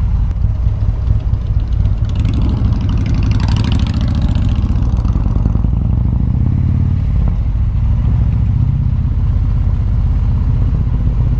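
V-twin motorcycle engine running steadily at low town speed, with a brief rush of higher noise between about two and five seconds in.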